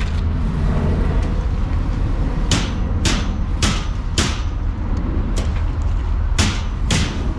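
Hammer blows on metal: four sharp strikes about half a second apart, then two more a couple of seconds later, over a steady low rumble.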